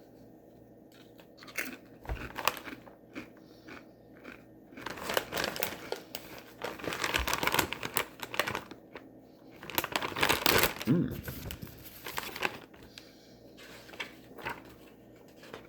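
Plastic snack bag crinkling in irregular bursts as it is handled and opened.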